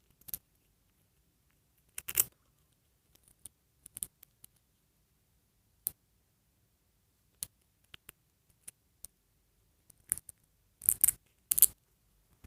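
Scattered small clicks and brief scraping rustles of the snap-on plastic hair pieces of an LOL Surprise Hairvibes doll being pulled off and handled, with a louder cluster of scrapes near the end.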